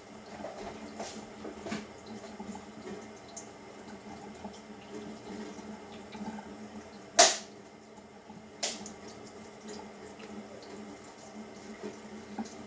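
Water running quietly into a kitchen sink, with a sharp knock about seven seconds in and a lighter one a second and a half later.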